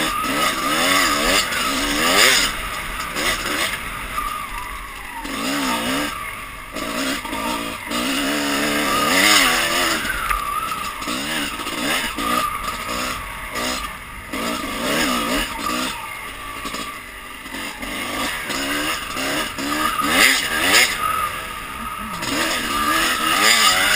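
Dirt bike engine revving up and down again and again as it is ridden along a trail, its pitch climbing and dropping every second or two, heard from on the bike.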